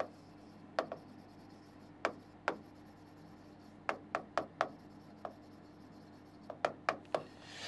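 Stylus tapping and stroking on an interactive display screen during handwriting: a scattering of short, light clicks, several in quick succession about four seconds in and again near the end.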